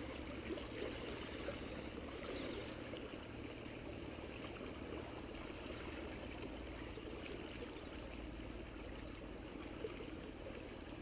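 Small waves lapping and trickling among shoreline rocks, a steady faint wash of water.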